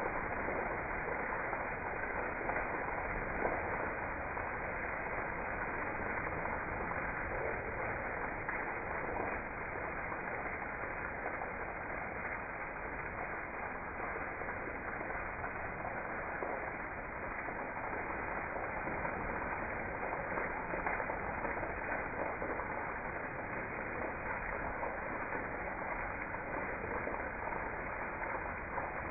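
Heavy rain pouring steadily onto trees and a puddled yard, an even, unbroken hiss.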